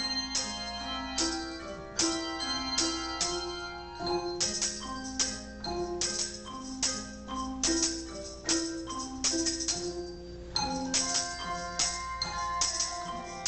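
A handbell choir playing a tune: bells are struck in a steady beat, and their notes ring on and overlap in chords. Many beats carry a bright, jingling attack.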